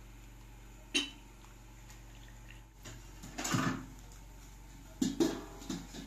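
Dishes and a cooking-pot lid clattering: a sharp click about a second in, a louder clatter a little after three seconds, and a quick run of knocks about five seconds in.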